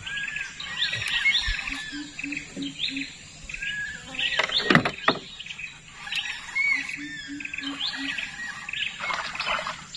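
Several wild birds chirping and calling over one another in short, quick rising and falling phrases. Twice a low hooting note repeats four or five times in a quick run. A louder, brief burst of noise comes about halfway through.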